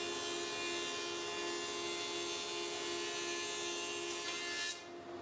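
Thickness planer running as a small strip of timber is planed down for a snug fit: a steady motor whine with hiss. The high hiss drops away suddenly near the end, leaving a lower steady hum.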